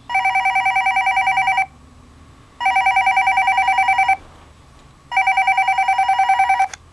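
Sailor Chibi Moon toy cordless phone ringing with an electronic warbling ring tone: three rings of about a second and a half each, a second apart.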